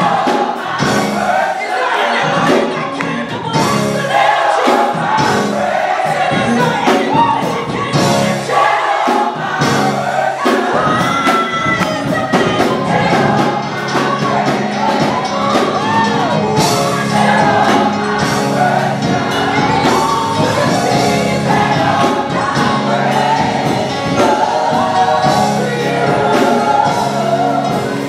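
Gospel choir singing full-voiced with instrumental accompaniment and a steady beat.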